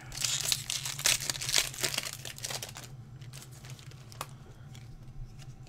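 Foil Pokémon booster pack wrapper crinkling and tearing as it is opened, for about three seconds, followed by a few faint ticks.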